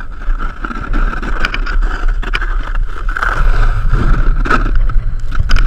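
Snowboard sliding and carving over snow at speed, with wind rushing over the GoPro's microphone: a loud steady rumbling rush broken by a few sharp knocks.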